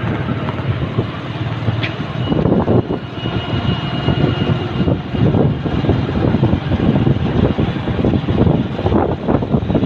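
Moving-vehicle noise: a loud, uneven rumble of engine and road with wind buffeting the microphone. A faint thin whine sounds briefly in the first half.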